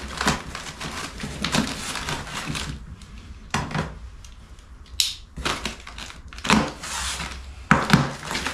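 Plastic-wrapped foam packing sheet rustling and crinkling in several spurts as hands press and pull at it inside a cardboard box.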